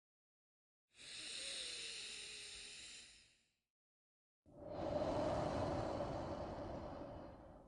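Slow, deliberate human breathing of a relaxation breathing exercise: two long breaths of about two and a half to three seconds each, the first airy and hissy, the second louder and fuller, with complete silence before and between them.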